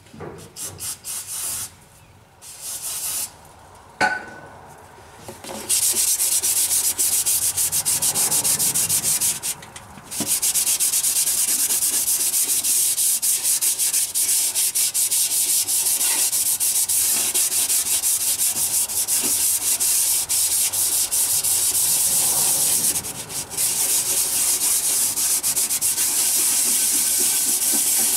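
A Scotch-Brite pad scouring the lower liner sealing surface inside the cast-iron block of a CAT D13000 engine, with brake cleaner, to clean up the machined seal area. After a few seconds of scattered rubbing and a sharp click, a steady, dense scrubbing noise starts and runs on, breaking off briefly twice.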